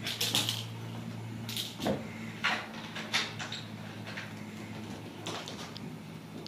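Ragdoll kittens scampering and pouncing on a rug as they chase wand toys: a string of short, irregular scuffs and rustles over a steady low hum.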